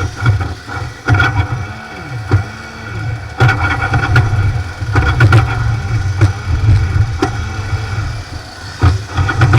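Racing kart engine revving in short surges, its pitch rising and falling again every second or two, with sharp cracks between the surges.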